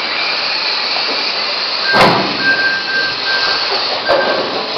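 Electric mini-class RC cars racing: a steady hiss of motors and tyres, with a thin high tone that comes and goes. Two sharp knocks about two seconds apart, the first the loudest.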